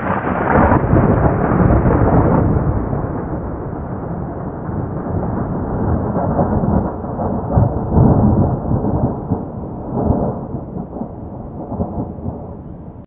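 Thunder: a long rumble that starts suddenly, swells again about eight and ten seconds in and dies down, then cuts off abruptly.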